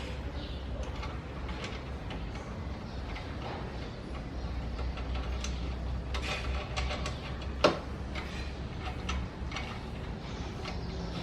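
Irregular metallic clicks and taps of hand tools working on the car's underside, with one sharp knock about two-thirds of the way through, over a steady low hum.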